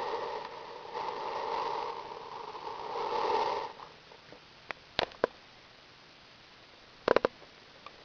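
Single-cup drip coffee maker gurgling and hissing as it heats and pushes water through to brew. The sound cuts off suddenly a little over three and a half seconds in, followed by a few sharp clicks.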